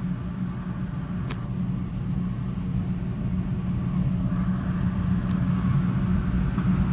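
Metra commuter train's running noise heard from inside its leading cab car: a steady low rumble of wheels on rail that slowly grows louder, with a sharp click about a second in.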